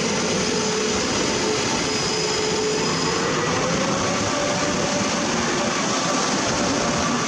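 Electric train moving off along a station platform: a steady running rumble and wheel noise, with a motor whine that rises slightly in pitch about three seconds in as it picks up speed.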